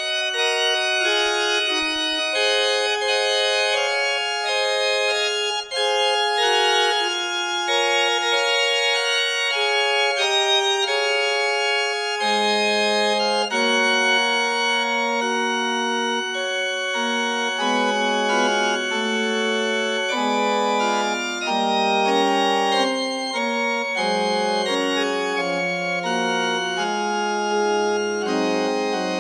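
Organ music playing slow, held chords, with a lower bass part joining about twelve seconds in.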